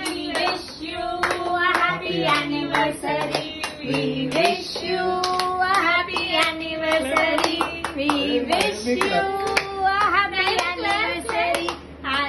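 Voices singing a tune together, with repeated hand-clapping throughout.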